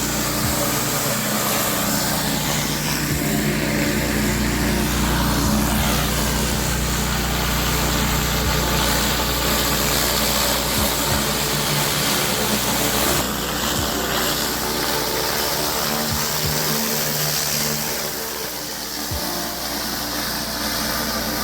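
Pressure washer engine running steadily under a constant hiss of high-pressure water spraying onto a paver driveway. The spray sound shifts about two-thirds of the way through and dips slightly in level soon after.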